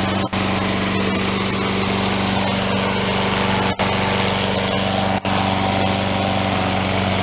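Sears Craftsman 22-inch Series 650 mower's small single-cylinder four-stroke engine running steadily at speed, freshly revived after a year unused with a blade that had been striking the cover underneath. The sound cuts out for an instant three times.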